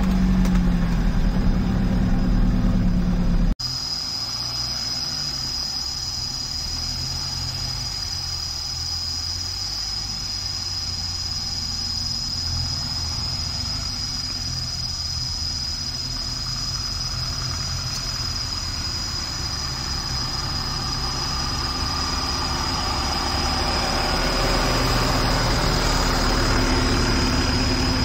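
Off-road jeep engines on a dirt trail. For about the first three and a half seconds, one jeep is heard from inside its cab as it drives. It then cuts to the lower rumble of several Mahindra jeeps crawling along the track, which grows louder over the last few seconds as they come closer. A thin, steady high-pitched whine runs along after the cut.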